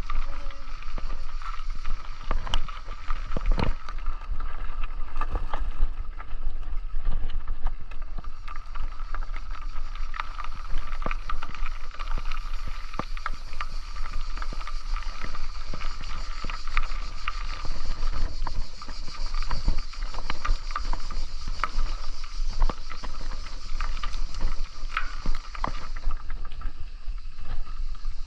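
Riding a bicycle: steady rumble of tyres and wind on the microphone, with frequent small knocks and rattles from bumps in the road.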